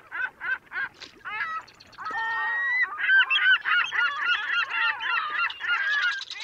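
A flock of geese honking: separate honks about three a second at first, then many birds honking over one another from about two seconds in.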